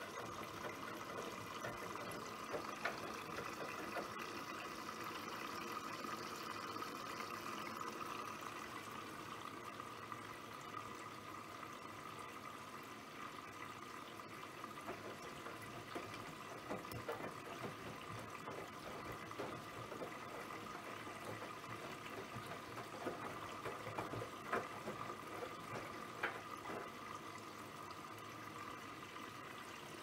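Bosch Serie 4 VarioPerfect washing machine in its rinse cycle: a steady rush of water running in and sloshing in the drum, with a few brief splashes or knocks.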